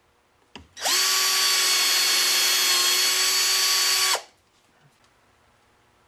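Power drill drilling screw holes in PVC pipe: a click, then the drill runs at a steady speed for about three seconds with a steady whine and stops abruptly.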